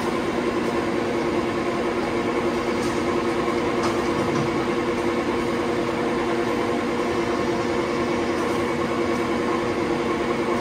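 Two-stack napkin paper packing machine running: a steady mechanical hum with a few even tones, and a few faint clicks.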